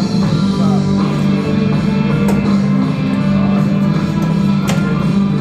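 Rock music with guitar playing from a radio.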